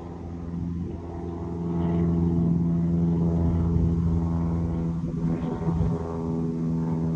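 An engine running steadily with a low, even hum, growing louder about two seconds in and then holding.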